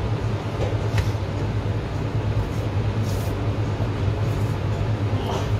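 Steady low hum of commercial kitchen machinery. A faint click comes about a second in, and a few soft knife scrapes follow as meat is trimmed on a cutting board.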